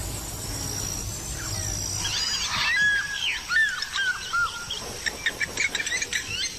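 Birds calling: a rapid run of short, arching whistled chirps begins about two seconds in and carries on to the end, over a steady background of natural ambience.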